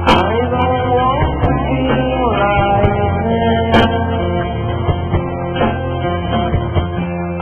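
Rock song with guitars; a melody line slides up and down in pitch over the first few seconds, over a steady low bass.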